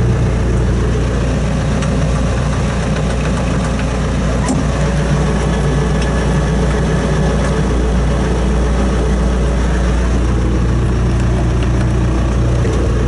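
New Holland T5070 tractor's four-cylinder diesel engine idling steadily, heard from inside the cab.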